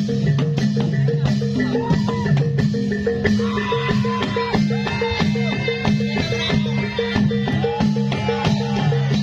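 Reog accompaniment music: drums and gong-chime tones repeat in a steady pattern, and from a couple of seconds in a melody line bends up and down in pitch over them.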